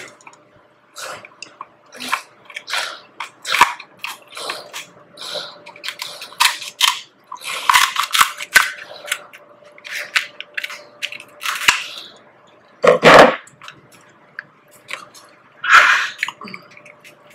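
King crab leg shells being cracked and pulled apart by hand: a string of sharp, irregular cracks and crunches, with chewing in between. The loudest crack comes about 13 seconds in.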